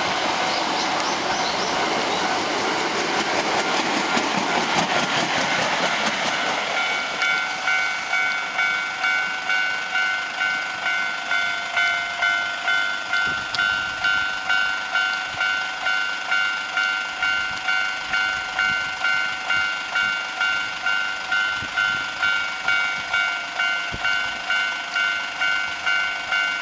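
Osaka Metro 66 series eight-car train running past over the level crossing, its wheels and running gear loud for about the first seven seconds before the train clears. A level crossing's electronic alarm bell rings throughout, a little more than one ding a second, and goes on alone once the train has gone.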